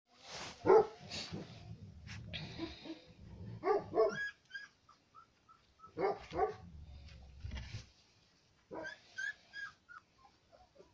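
Central Asian Shepherd (alabai) puppy whining and yelping in several short bouts, with thin high whimpers between them.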